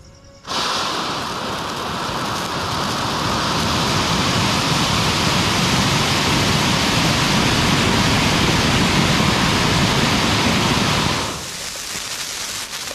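Flower pot (anar) ground-fountain firework catching about half a second in and spraying sparks with a loud, steady rushing hiss. Near the end it drops off sharply to a weaker, uneven hiss as the fountain dies down.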